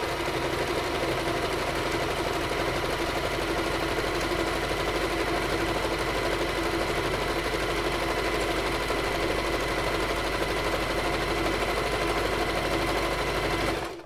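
Singer Tradition 2282 sewing machine running steadily as it sews a dense satin stitch at full zigzag width. The stitch length is under 1 mm, so the fabric feeds slowly. The machine stops just before the end.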